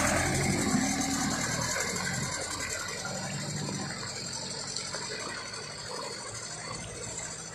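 Engine of a loaded 4x4 palm-oil truck running as it drives off along a muddy track, growing steadily fainter as the truck moves away.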